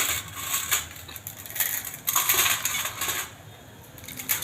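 Metal utensils clinking and scraping against a cooking pan, in irregular taps, while instant noodles are being made.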